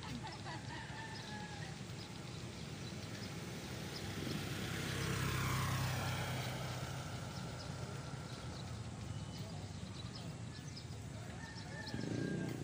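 An engine passing by, growing to its loudest about five to six seconds in and then fading, its pitch falling as it goes past.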